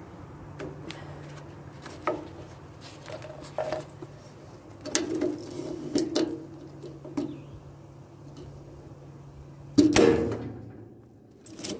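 Flatbed trailer cargo straps being released and stripped off: a run of clicks and clanks, with one loud clank about ten seconds in, over a steady low hum.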